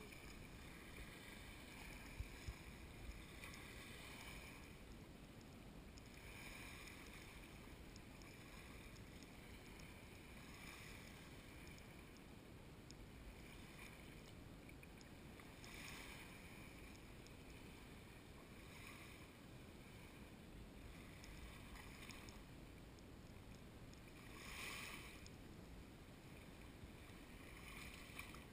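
Faint small waves lapping on a sand shore, a soft wash every two or three seconds over a low, steady wind rumble.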